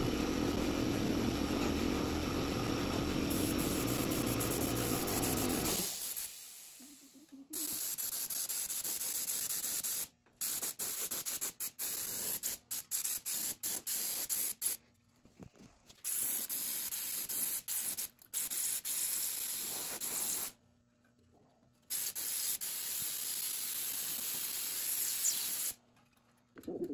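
Gravity-feed paint spray gun hissing in repeated bursts as the trigger is pulled and released, with short breaks between passes. For the first six seconds a steady low running noise sits under the hiss, then fades out.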